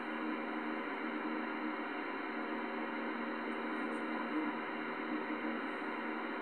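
Grundig CBH 2000 CB radio receiving on channel 46, its speaker giving a steady, thin-sounding hiss of static with faint steady hum tones through it.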